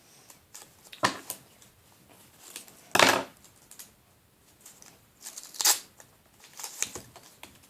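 Paper rustling and crinkling in several short bursts as a handmade paper surprise packet is opened and its contents pulled out, the loudest crinkle about three seconds in.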